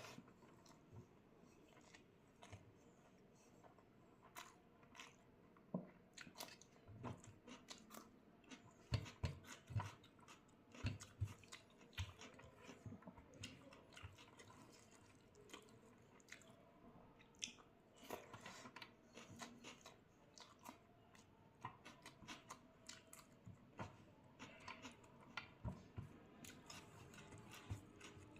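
A person chewing and biting food close to the microphone: many soft, irregular wet mouth clicks with occasional crunchy bites, a meal of rice, egg curry and raw onion and cucumber. The bites come thickest in the middle.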